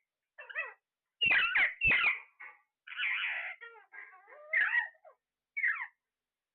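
Parrot calling in a rapid series of short squawks and chirps, with a harsher, rasping squawk about three seconds in.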